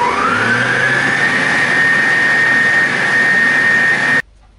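Electric stand mixer beating muffin batter, its motor whine rising in pitch over the first second as it speeds up, then holding steady. The whine cuts off suddenly near the end as the mixer is switched off with the batter done.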